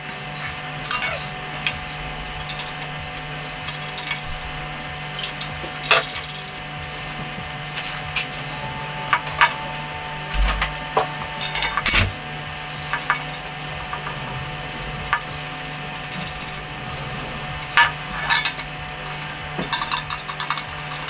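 Light metallic clicks, scrapes and knocks of a cheap metal kettle barbecue's bowl and wire handle being handled and fitted together by hand, with one sharper knock about halfway through. A steady low hum runs underneath.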